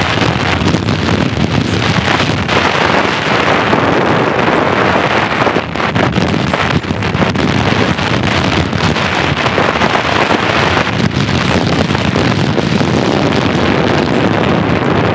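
Loud, steady wind noise rushing over the microphone, with many short knocks and rattles through it.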